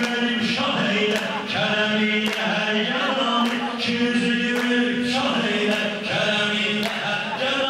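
Several men chanting a Shia religious song in unison, with a lead voice carried through microphones and a public-address system. Hand claps keep a slow, steady beat about once a second.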